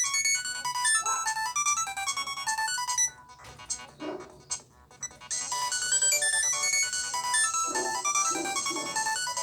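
Nokia ringtones played on an LG B470 phone: a quick melody of short electronic beeping notes ends about three seconds in, and after a brief pause a new ringtone tune starts about five seconds in.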